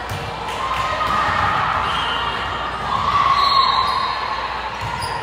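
Volleyball gym: a ball thumping several times on the hardwood court floor over a steady background of crowd and player voices.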